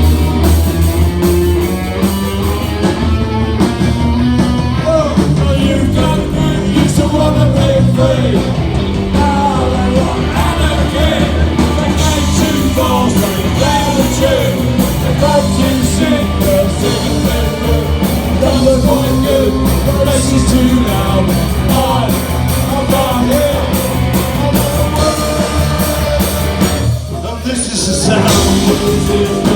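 Live punk rock band playing loud, with electric guitars, drums and a lead voice singing, heard through the room. The music drops out briefly about 27 seconds in before starting again.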